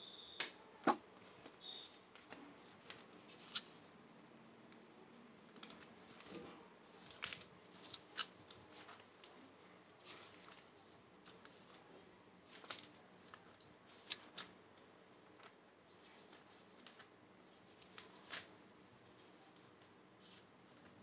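Scattered small clicks, taps and rustles of things being handled, over faint room tone, with the sharpest clicks a few seconds in and about two-thirds of the way through.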